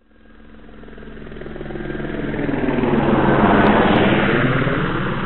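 Helicopter flying past: it grows steadily louder to a peak about three and a half to four seconds in, then fades away.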